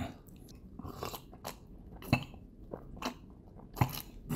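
Close-miked mouth sounds of cola being drunk from a glass mug: a quiet string of separate gulps and wet clicks, about seven or eight, irregularly spaced.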